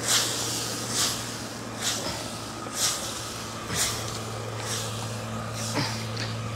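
Lingcod and sauce being tossed in a hot wok, about one sizzling swish a second, over a steady low hum.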